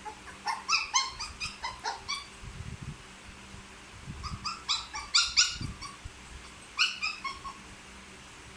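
A puppy crying in short, high-pitched whimpers and yelps, coming in three bouts.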